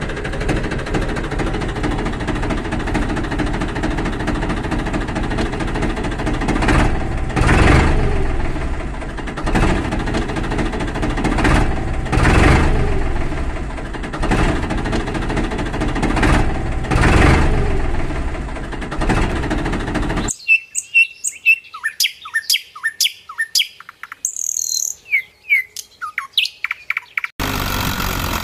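A tractor engine sound runs steadily, surging about every two and a half seconds. About twenty seconds in it cuts off, leaving birds chirping for several seconds, and the engine sound comes back near the end.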